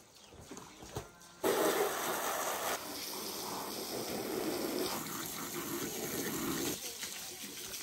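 Garden hose spraying water onto a carpet laid on the ground to wash it: a steady rush of water that starts abruptly about a second and a half in.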